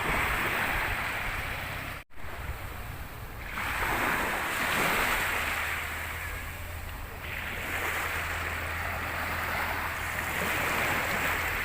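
Sea waves washing onto a beach, the surf swelling and fading about three times.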